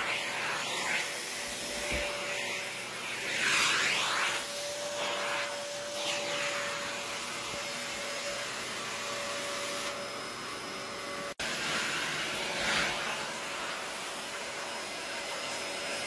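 Corded vacuum cleaner running steadily with a constant motor whine, its suction noise swelling and easing as the nozzle is drawn over clothing covered in shed husky fur. The sound cuts out for an instant about eleven seconds in.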